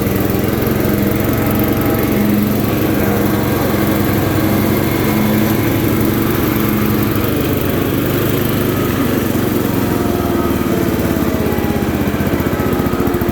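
Older MTD riding lawn mower engine running steadily, its note shifting slightly about halfway through.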